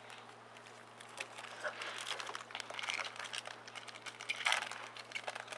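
Foil wrapper of a Topps Chrome baseball card pack being torn open and crinkled by hand: a dense papery crackle, heaviest in the middle and again in a short burst near the end.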